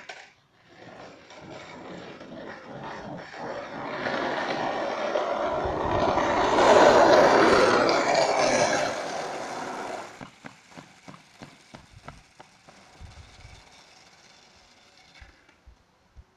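Wheels rolling past on the road surface: a noisy rush that swells for several seconds, peaks, and fades away about ten seconds in, followed by a scatter of light clicks.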